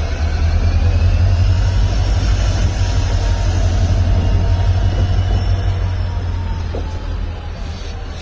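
WDP4D diesel-electric locomotive's 16-cylinder two-stroke engine humming with a heavy, deep rumble as it accelerates. The sound swells about a second in and eases off gradually toward the end, with a faint whine gliding above it.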